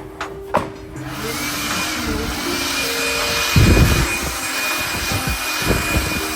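A workshop power tool starts up about a second in and runs steadily with a hiss and a high whine, with a few low knocks, the loudest about halfway through.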